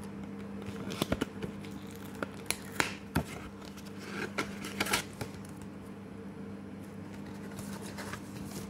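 Cardboard and paper handling as a McDonald's Pokémon card folder is opened and a cardboard insert slid out: a cluster of short crisp rustles and taps between about one and five seconds in. A steady low hum runs underneath.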